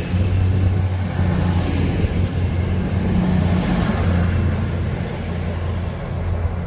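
Diesel train engines running steadily: a low hum with a thin high whine above it, easing off near the end.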